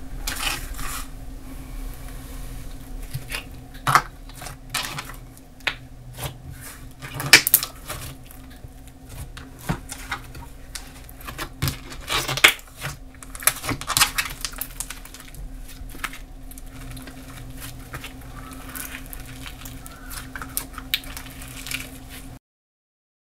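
White glue slime mixed with Model Magic clay being kneaded, pressed and stretched by hand: wet squishing with irregular sharp clicks and pops from trapped air. The sound cuts off abruptly about a second before the end.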